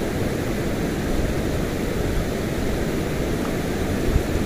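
Steady rushing of river water flowing over a rocky ledge, with one brief low thump about four seconds in.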